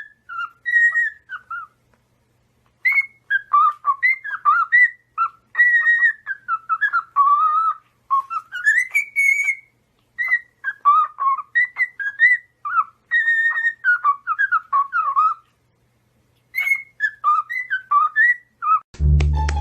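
Pet parrot whistling a tune: a run of short, clear whistled notes that glide up and down, in phrases broken by brief pauses.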